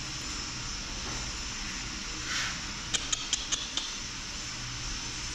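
A quick run of about five light clicks about three seconds in, as the rotary hammer's armature is handled and turned in the hand, over a steady background hiss.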